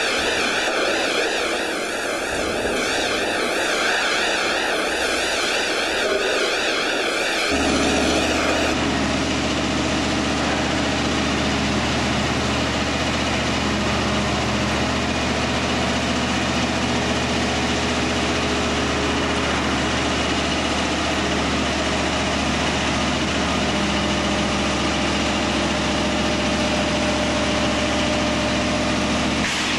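A wavering mechanical whine for the first several seconds gives way, about eight seconds in, to a heavy diesel engine running steadily with a low, even hum.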